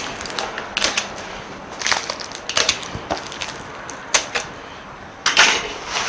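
Clear plastic wrap and tape being peeled and torn off a cardboard box: a string of short crackling rips at irregular intervals, the loudest near the end.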